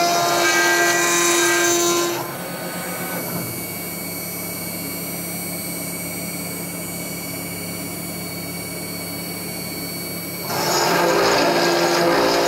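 Mechmate CNC router spindle milling 10 mm S355MC steel plate with an endmill, a loud cutting noise. About two seconds in the cutter lifts out of the steel and the spindle runs free with a quieter steady tone. Near the end it goes back into the plate and the loud cutting resumes.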